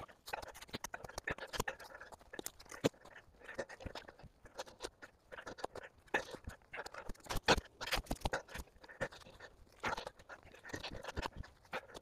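Long-handled shovel digging into forest soil: irregular strikes and scrapes of the blade cutting in, with dirt tossed aside.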